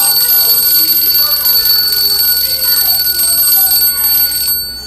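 Clockwork mechanism of a wind-up tin Godzilla tricycle toy running, its bell ringing rapidly and without a break like an alarm clock. The ringing stops abruptly about four and a half seconds in.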